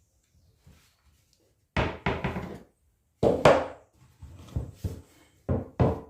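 A series of hard wooden knocks and thunks, as of tools or wooden parts being handled and set down. A quick cluster of three or four comes about two seconds in, a louder pair a little later, and several more toward the end.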